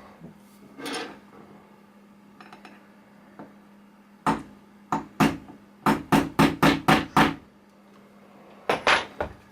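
A small hammer tapping a pin into a pistol slide to hold the extractor, in sharp metallic taps. A few single taps come first, then a quick run of about seven, then two or three more near the end.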